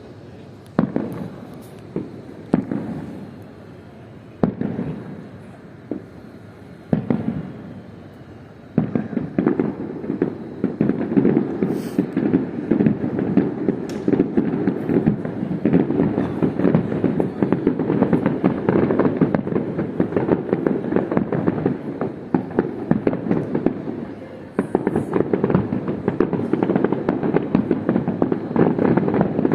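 Fireworks going off: single bangs every second or two for the first several seconds, then from about nine seconds in a dense, continuous crackle of rapid bangs.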